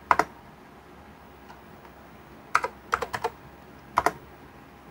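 Keys being struck on an Apple IIGS keyboard, typed in short bursts: a couple of keystrokes right at the start, a quick run of about six a little past two and a half seconds in, and two more about four seconds in.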